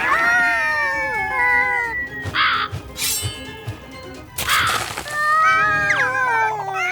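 Cartoon soundtrack: music with sliding, downward-falling tones, broken by two short noisy sound-effect bursts.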